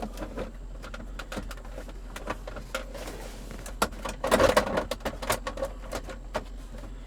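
Hard plastic interior trim pieces being handled and fitted by hand: a string of light clicks and knocks, with a busier run of them about four seconds in.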